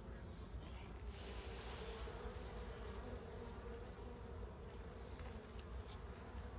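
Honey bee colony buzzing in a steady hum as its hive stands open for inspection.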